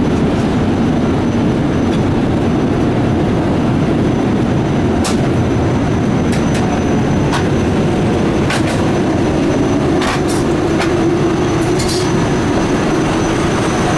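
Steady, loud cabin roar of a Boeing 787 Dreamliner in flight, the even rumble of airflow and engines heard inside the passenger cabin. A few light clicks and clatters sound over it in the second half.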